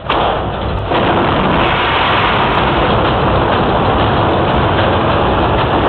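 A steady, loud rushing roar that starts suddenly and deepens about a second in, then holds unchanged, like a rocket engine or a strong wind.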